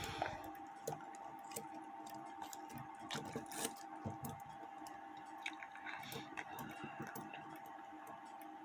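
The wheels and levers of an antique Albert Flieg cuckoo clock movement make irregular light clicks as it is run by hand to test whether the strike trips after the trip arm was bent. A faint, steady high hum sits under the clicks.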